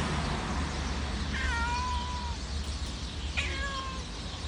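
Domestic cat meowing twice: a long meow that falls slightly in pitch, then a shorter one about two seconds later, over a steady low background hum.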